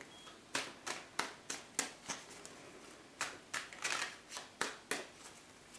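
Tarot deck being shuffled by hand: a quick run of light card slaps and flicks, about three a second, with a short pause midway.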